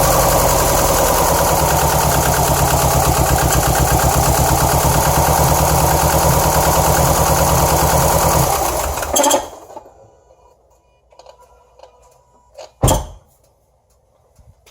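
2007 Subaru Impreza WRX STI's turbocharged 2.5-litre flat-four idling roughly, a rough idle the owner puts down to misfires on cylinders 1 and 3, then shut off about nine seconds in. A single sharp thump follows a few seconds later.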